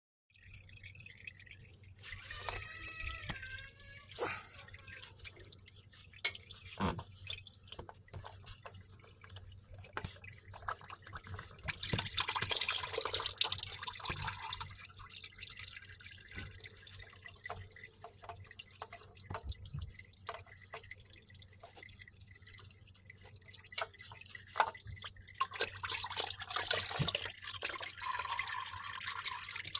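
Motor oil pouring and dripping, with scattered clicks and knocks. The flow is louder for a couple of seconds about twelve seconds in and again near the end.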